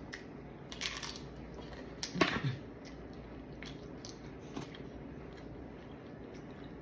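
A taco being bitten and chewed: two louder bites about one and two seconds in, then quieter chewing.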